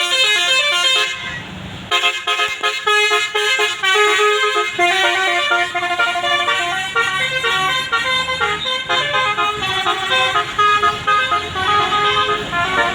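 A bus's Basuri multi-tone musical air horn playing a fast telolet melody, its notes stepping rapidly up and down. It breaks off about a second in and then plays on without a pause.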